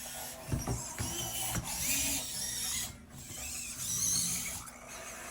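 Robosen Elite Optimus Prime robot's servo motors whirring and clicking as it transforms on a voice command. There are a few sharp knocks in the first second and a half, then the whirring comes in surges.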